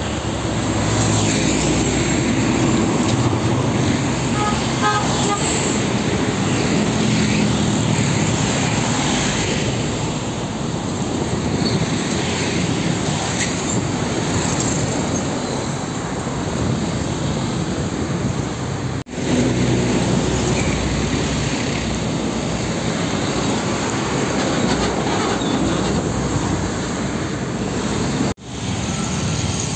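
Heavy diesel trucks passing close by on a busy road, their engines running low over steady tyre and traffic noise. The sound breaks off for an instant twice, about two-thirds of the way in and near the end.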